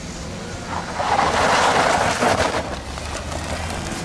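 A vehicle passing on a wet, snowy road: tyre hiss swells about a second in and eases off after about two and a half seconds, over a steady low rumble.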